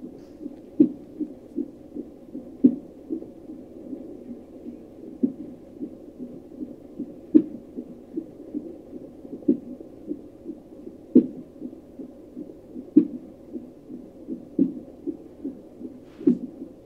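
Fetal Doppler monitor playing an unborn baby's fast heartbeat as soft, even pulses of about two and a half a second. Sharper, louder thumps about every two seconds over the heartbeat are the baby's hiccups.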